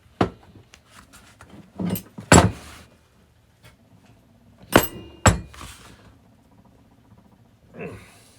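Steel parts of a Kurt milling machine vise knocking and clinking as they are handled and worked loose. There are a few sharp metal clanks, the loudest about two and a half seconds in and twice near five seconds.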